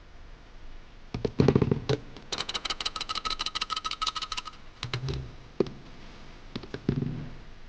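Hand tools working on metal: a few clicks and knocks, then a quick run of about ten ringing metallic clicks a second lasting about two seconds, then a few more knocks near the end.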